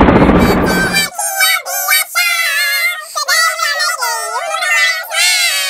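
A loud, dense, noisy blare that cuts off suddenly about a second in, followed by very high-pitched voices singing an intro jingle, their pitch sliding up and down.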